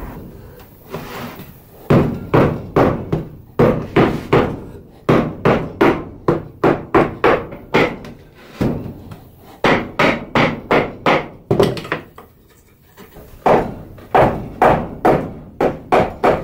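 Rubber mallet striking the wooden boards of a painted coffee table in quick runs of blows, about three a second, with a lull about twelve seconds in.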